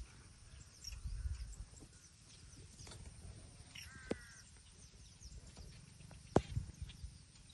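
Birds calling and chirping in open countryside, with one harsh, crow-like call about four seconds in. Two sharp clicks come about four and six seconds in, over a low rumble that comes and goes.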